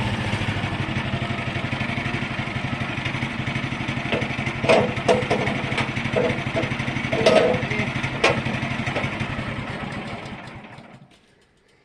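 Petrol engine of a small portable band sawmill running steadily, with several sharp knocks in the middle, then dying away to near silence near the end as the engine stops.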